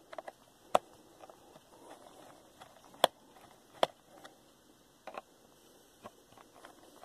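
A screwdriver backing out the captive screws of a laptop's bottom panel: scattered faint ticks and scrapes, with a few sharp clicks as the screws pop loose from their threads.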